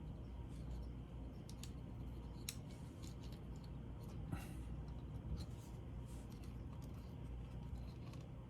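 Scattered light clicks and small scrapes of tiny laptop parts and screws being handled and set in place, over a steady low hum.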